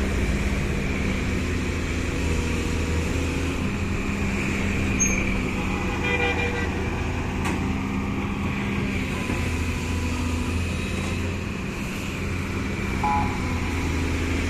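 Excavator's diesel engine running steadily with a low drone, and a brief higher-pitched tone about six seconds in and again near the end.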